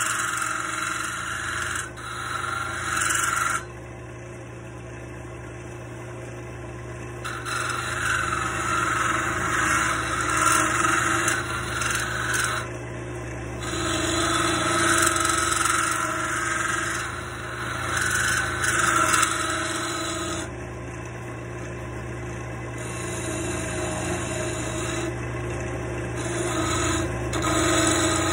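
Wood lathe running with a steady motor hum while a hand-held turning tool cuts a spinning wooden dowel. The scraping of the cut comes and goes in passes of several seconds, with short breaks where only the motor hum is left.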